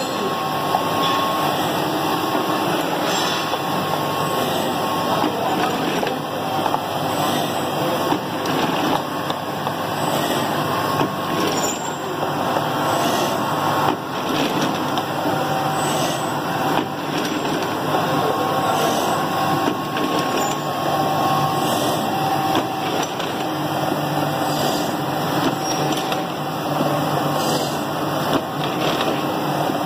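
Twin-head auger powder filling machine and pocket conveyor running: a steady mechanical hum with faint tones that come and go and light intermittent ticks.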